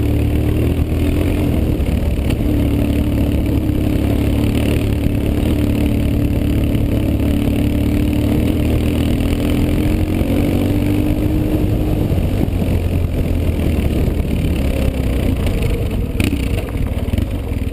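BMW R 1150 GS flat-twin boxer engine running steadily at low revs, its note wavering slightly with the throttle. A single sharp knock comes near the end.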